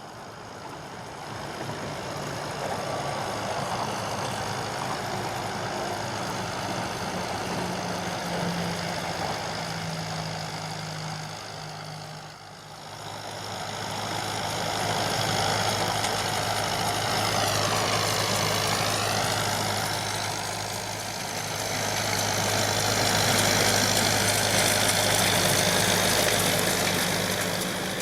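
John Deere 5720 tractor's diesel engine running steadily while driving a Feraboli Extreme 265 HTC round baler through straw. The engine note dips and recovers once, about two-thirds of the way through.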